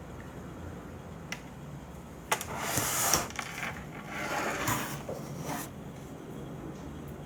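Handling noise close to a phone's microphone: a small click, then two rustling, rubbing spells of about a second or more each.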